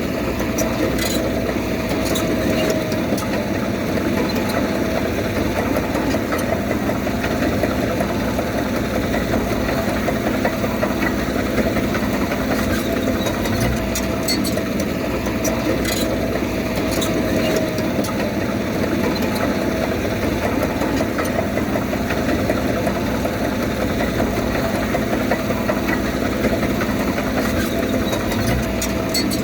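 Diesel engine of heavy earthmoving equipment running steadily, with a few sharp clicks.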